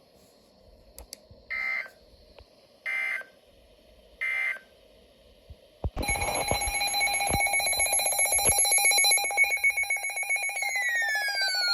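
Three short electronic data bursts, the EAS end-of-message tones, closing a weather-radio warning. About six seconds in, a louder electronic alert alarm cuts in: a rapid pulsing beep of several steady tones, with falling sweeps added near the end.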